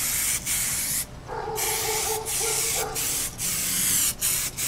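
Aerosol can of white primer spraying onto a motorcycle fairing in a series of short hissing passes, broken by brief pauses. The primer is spraying poorly, spattering little dots onto the panel.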